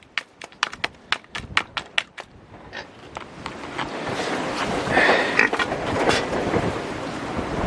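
Quick footsteps on frozen ground, about four or five steps a second, which die away after about two seconds as a loud rushing noise builds up and stays loud, with a few knocks in it.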